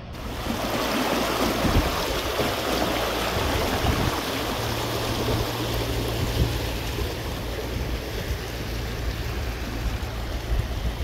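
Small mountain brook rushing and splashing over stones, a steady dense water noise. It comes in suddenly at the start and is slightly louder in the first few seconds.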